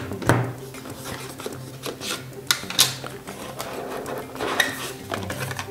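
Cardboard phone-box packaging being handled: the paperboard insert is pressed, shifted and pulled, giving scattered sharp taps and scrapes, about one a second.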